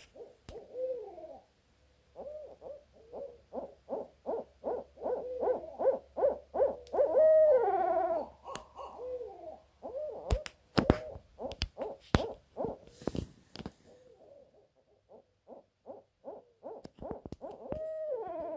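Barred owls calling overhead: a fast run of hoots that ends in a long falling slur, then a few sharp knocks, then another run of hoots ending in a falling slur near the end.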